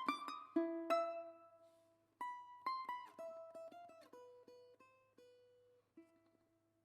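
Music played on a plucked string instrument: single picked notes that ring and fade, a short pause about two seconds in, then a slower phrase of notes stepping downward and a last note near the end, where the piece finishes.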